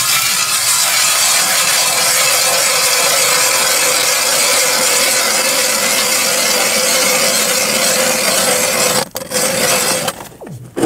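Ice auger drilling a hole through lake ice: a loud, steady cutting noise that stops suddenly about nine seconds in.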